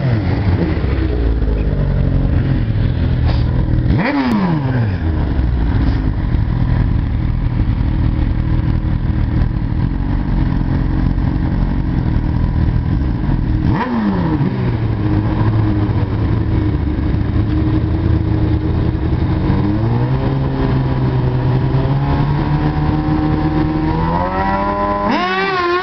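1000cc inline-four sportbike engines idling at a drag strip start line. The throttle is blipped twice and the revs fall back each time. Near the end the revs climb sharply for the launch.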